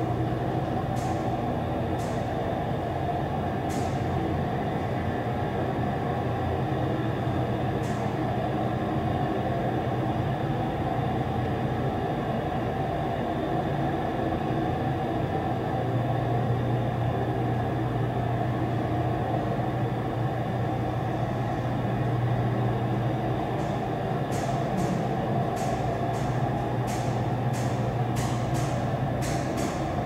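Large hydraulic freight elevator travelling, heard from inside the car: a steady hum from its hydraulic power unit, with a run of sharp clicks in the last few seconds as the car nears the landing.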